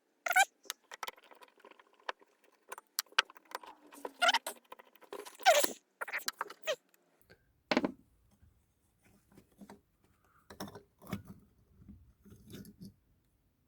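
Small metal carburetor parts and screws clinking, tapping and scraping as the carburetor is taken apart by hand. The sound is a string of sharp clicks and knocks, busy for the first half and sparser after.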